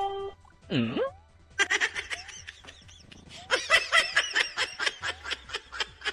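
Bursts of laughter in quick repeated pulses, dubbed over the clip, with a quick falling glide, like a cartoon sound effect, about a second in.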